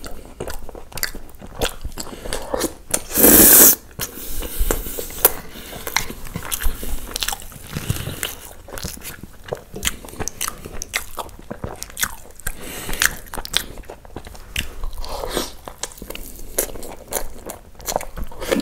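Close-miked chewing and wet mouth sounds of a person eating butter naan with butter chicken gravy, with short smacking clicks all through. A brief loud noisy burst about three seconds in stands out above the rest.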